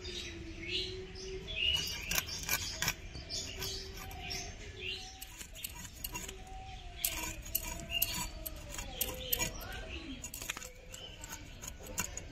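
Hilsa being scaled and cut on a boti, a fixed curved blade: an irregular run of sharp scraping clicks as the fish is worked against the blade, with birds chirping in the background.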